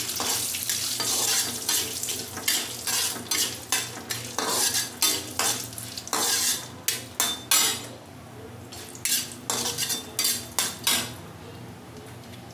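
Metal spatula scraping and stirring in a kadhai while peanuts, dals, curry leaves and dried red chillies sizzle in hot oil for a tadka. The quick scraping strokes stop about eleven seconds in, leaving a quieter sizzle.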